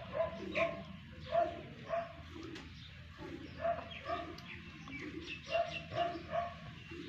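A run of short animal calls, repeated many times at uneven spacing, over a steady low hum.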